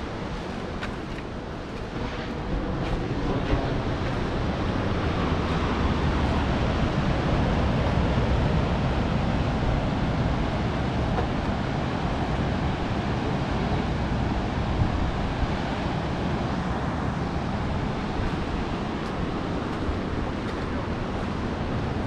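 Surf breaking on a rocky shore, a steady rush of waves that swells louder a few seconds in, with wind buffeting the microphone.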